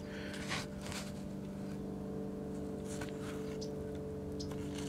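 A steady low hum made of several even tones, with a few faint clicks and taps over it.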